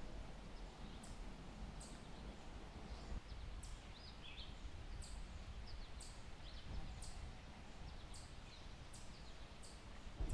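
Faint outdoor ambience of wet woods and meadow: a steady low rumble with a bird repeating a short, high note every second or so, and a few other chirps from more birds.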